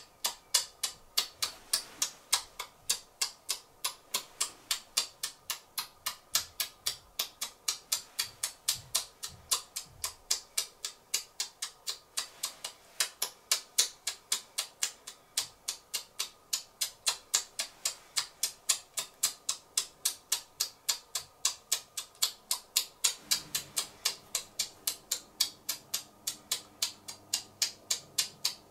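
Regular, even ticking: sharp clicks at about three a second. A low steady tone joins in about 23 seconds in.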